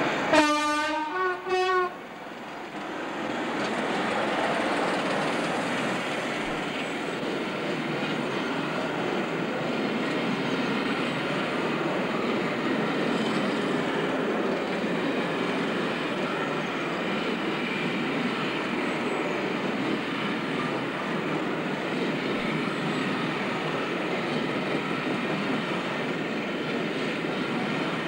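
Class 25 diesel locomotive sounds its two-tone horn, a longer low note then a short higher one, then runs past under power, its Sulzer engine working. A long train of coaches follows, rolling by with a steady noise of wheels on the rails.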